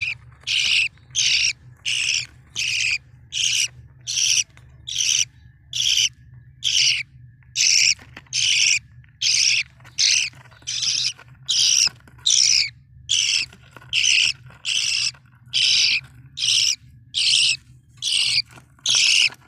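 Budgerigar giving harsh, raspy screeching calls over and over in a steady rhythm, about one and a half calls a second.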